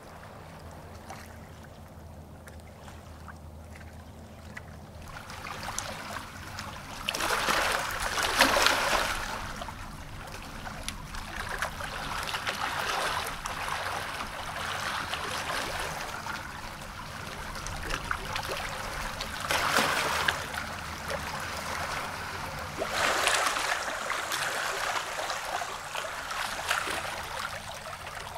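Shallow lake water lapping and sloshing, faint at first and then swelling in surges every few seconds, with small trickles and splashes.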